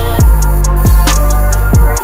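Background music with a heavy beat: deep bass-drum kicks and steady hi-hat ticks.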